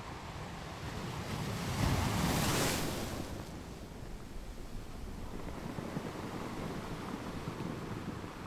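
Ocean surf, with one wave breaking and washing in, loudest about two to three seconds in, over a steady hiss of whitewash. Wind buffets the microphone.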